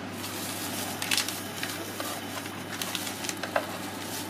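Steady background stall noise with a few short sharp rustles and clicks as a cream puff is handled and wrapped in a paper sleeve.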